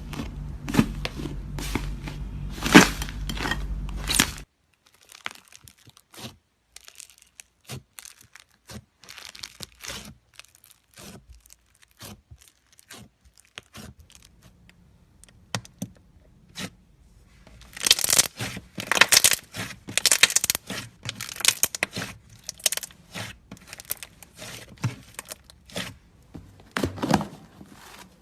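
Slime being squished, poked and stretched, making bursts of sticky clicks, pops and crackles. The crackling is sparse in the middle and grows dense and loud in the last third, with a low steady hum under the first few seconds.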